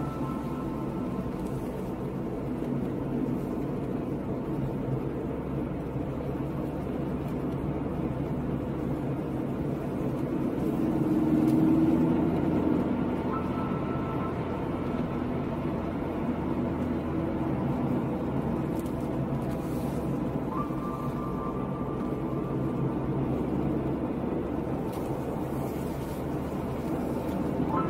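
Car driving at road speed, heard from inside the cabin: a steady rumble of engine and tyre noise that swells briefly about eleven seconds in.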